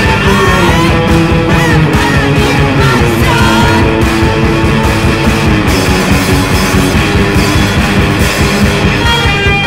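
Noise-rock from a bass-less three-piece band: electric guitars over a steady drum beat.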